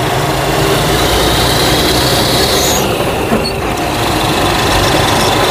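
Diesel truck engine running steadily as the truck drives along, heard from inside the cab, with a thin steady high whine over the engine drone.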